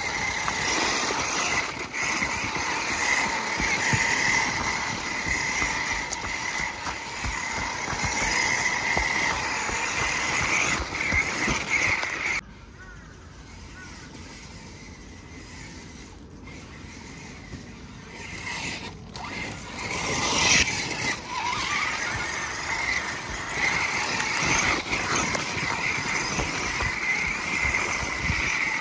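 Axial RR10 Bomber 2.0 1/10-scale RC rock racer running: a steady high whine from its brushless Fusion Pro motor, 17-tooth pinion and metal 68-tooth spur gear. The whine cuts off suddenly about twelve seconds in and stays quieter for several seconds. It comes back with a rising pitch around twenty seconds in as the car speeds up again.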